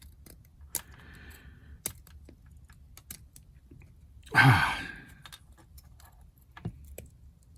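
Small clicks and a short scraping rub as a hand tool works the hardened super glue and baking soda filler on a metal part, with a breathy sigh about four and a half seconds in.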